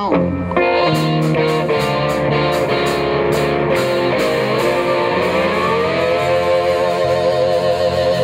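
Live electric blues band playing an instrumental passage with no singing: electric guitar over bass and drums. About five seconds in, one note slides up and is held with a wavering vibrato.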